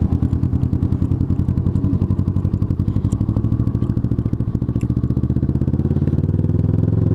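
Kawasaki ER-6n parallel-twin motorcycle engine running at low revs while the bike rolls slowly, with an even throb that grows a little louder and higher near the end as the throttle opens.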